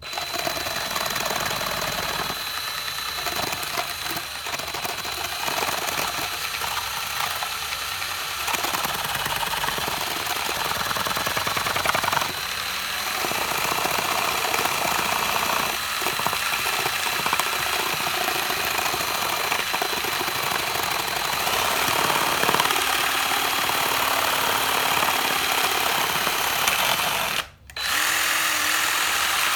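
Power drill driving a homemade LEGO chainsaw, its plastic crankshaft and chain clattering continuously as it works against styrofoam. The crankshaft is one the builder says keeps loosening itself. The drill stops for a split second near the end, then runs again.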